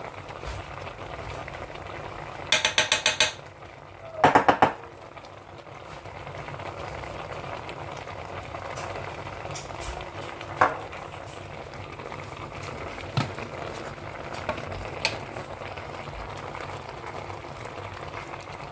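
Plastic spice bottle shaken over raw chicken in a cooking pot: two quick bursts of rapid rattling shakes, about two and four seconds in, then a few single knocks and clicks.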